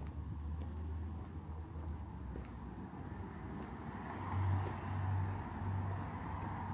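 A car passing on the road: a steady low engine rumble, with tyre noise building over the last few seconds.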